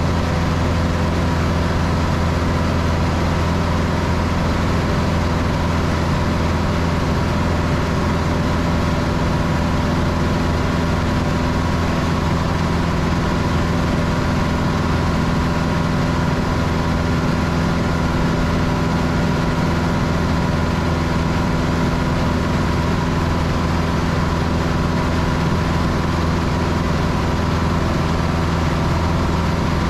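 Cessna 162 Skycatcher's four-cylinder Continental O-200 engine and propeller in cruise flight, heard from inside the cockpit as a loud, steady drone that holds the same pitch throughout.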